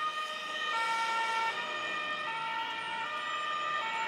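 Electronic warning tones, like a siren or alarm, stepping between several steady pitches about every three-quarters of a second.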